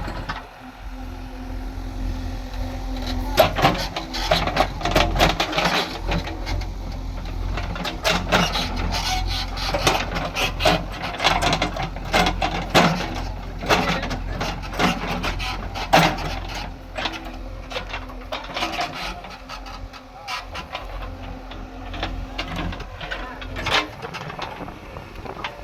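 JCB backhoe loader working: its diesel engine running with a steady low rumble, with many sharp knocks and clatters scattered throughout.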